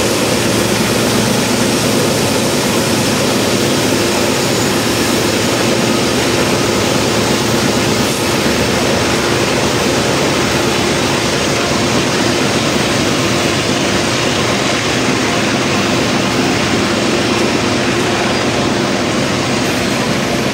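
Loaded coal train rolling past: steel wheels of the hopper cars running on the rails, over a steady drone from the diesel locomotives working up the grade ahead.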